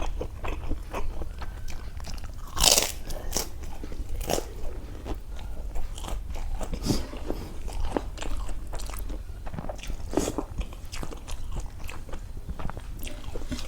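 Close-up chewing and biting of crunchy food, irregular crunches and mouth clicks, one louder crunch near the start, over a low steady hum.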